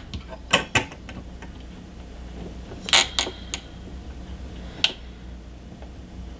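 A few short, sharp clicks and taps from hands handling PC parts on a desk, the loudest about three seconds in, over a low steady hum.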